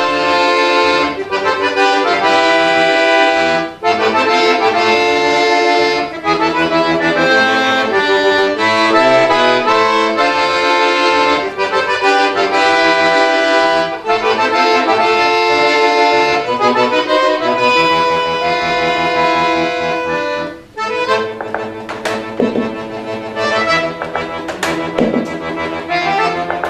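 Solo piano accordion playing a fast, loud toccata: dense chords and running notes, with brief breaks about four seconds in and near twenty seconds in. In the last few seconds sharp percussive hits sound over a held low note.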